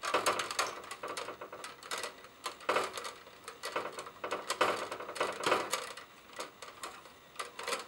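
Orange Ideal 73B plastic twist-on wire nut being screwed by hand onto a bundle of stripped copper wires, making an irregular run of small clicks and scrapes.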